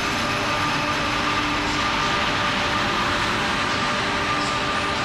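WAP-5 electric locomotive humming steadily, with a thin high whine over the hum.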